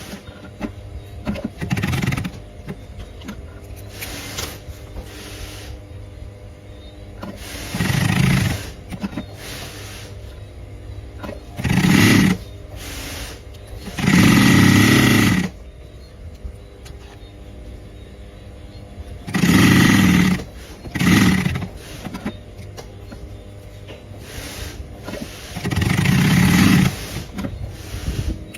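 Double-feed sewing machine stitching in short runs of one to two seconds, stopping and starting again several times, with quieter pauses between the runs.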